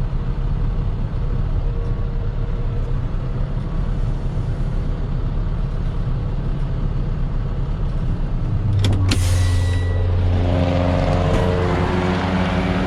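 Vehicle driving on a road: steady engine and road rumble. About nine seconds in there is a sharp click, then a louder, steady low drone with a few held tones above it.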